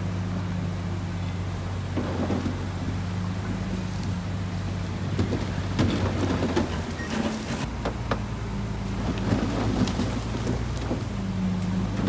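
Heavy diesel earthmoving machinery running steadily at a low, even note while soil and stones crunch, scrape and tumble, a dense crackle that is thickest in the middle.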